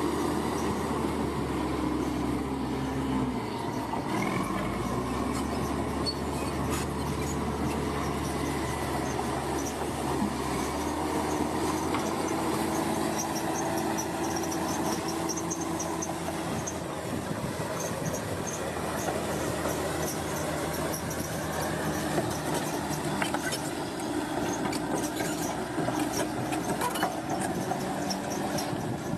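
Heavy construction machinery running steadily, with its engine note shifting a few times and intermittent metallic squeals and clanks, more of them in the second half.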